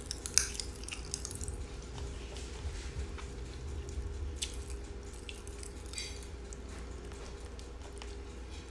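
Pop Rocks popping candy crackling in the mouth: scattered small pops and clicks, thickest in the first second and again around four to six seconds in, thinning out towards the end, over a steady low hum.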